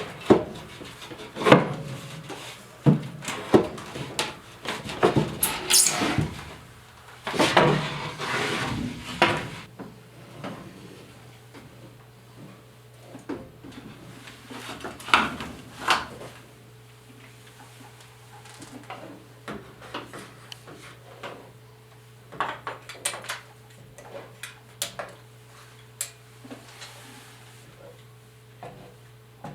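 A plywood piece knocking and scraping against the floor joist as it is worked loose and pulled out, a dense run of clunks for the first ten seconds, then sparser, quieter clicks and handling sounds.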